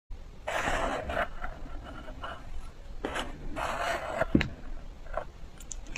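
A metal spoon scraping and scooping matcha-dusted shaved ice in a glass mug: grainy rasping strokes in a few separate bursts, with a sharp click a little over four seconds in.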